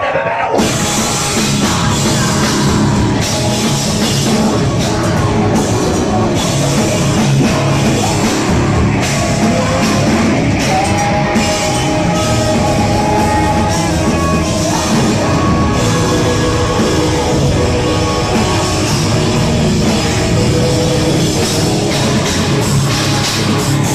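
Live metal band playing loud: distorted guitars over a pounding drum kit, with the full band sound coming in about half a second in.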